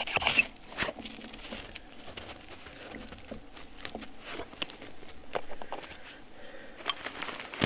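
A ferro rod scraped with the spine of a knife, a couple of quick rasping strikes that throw sparks into wood shavings. Then come scattered light clicks and handling noises as the tinder catches, with a short rustle near the end.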